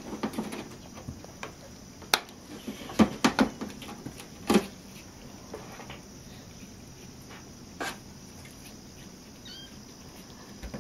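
Cats scrabbling in and against a cardboard box: a handful of sharp knocks and scuffs on the cardboard, grouped about two to four and a half seconds in with another near eight seconds, over quiet rustling, and a couple of faint high squeaks near the end.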